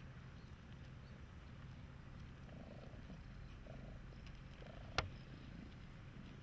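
A cat purring faintly as it is stroked. A single sharp click about five seconds in.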